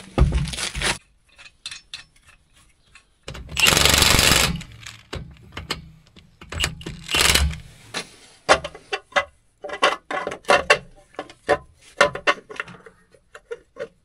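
A power tool, most like an impact wrench, runs in one burst of a little over a second and later in a shorter one, among many sharp metal clicks and knocks of lug nuts and a wheel being handled while a flat tyre is swapped.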